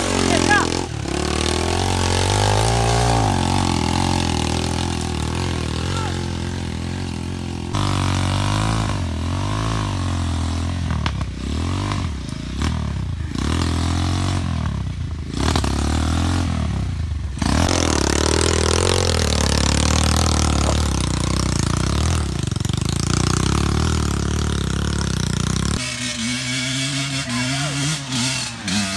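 Enduro dirt bike engine revving up and down as it is ridden on a trail, with a run of quick throttle blips in the middle and a long rising rev after them; near the end the engine note drops back.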